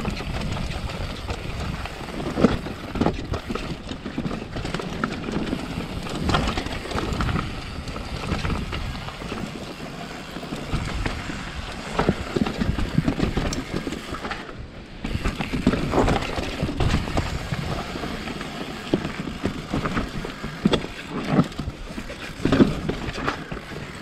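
Downhill mountain bike clattering over a rocky trail: irregular knocks and rattles as the tyres hit stones and the bike jolts, over a steady rumble of tyre and riding noise.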